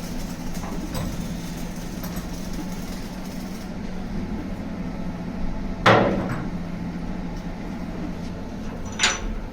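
Two sharp knocks over a steady low machine hum. The first, about six seconds in, is the louder and is followed by a short ring. The second comes near the end with a high metallic ring.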